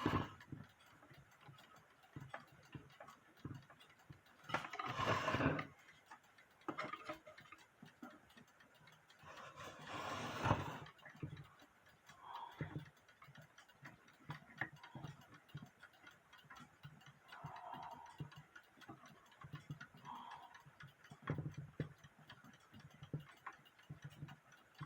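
Faint, steady ticking of an old mechanical alarm clock's movement, with two louder bursts of handling noise, scraping and rustling, at about five and ten seconds in.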